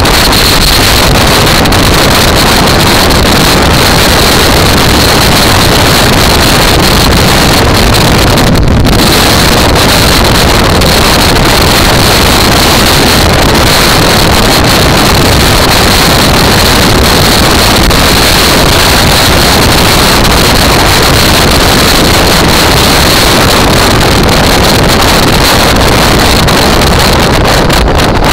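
Steady, very loud rush of wind and road noise on the microphone of a camera riding on a motorcycle at speed, with no clear engine note standing out.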